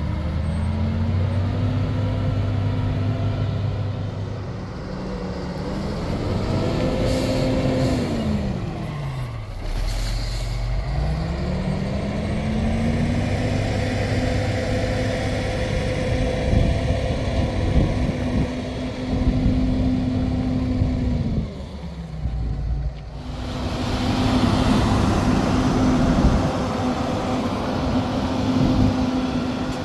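Wheel loader's diesel engine working under load as it pushes dirt, revving up to a steady high pitch, falling back to idle twice, and revving up again each time. A few sharp knocks are heard a third of the way in, and the sound breaks off for a moment about three-quarters of the way through.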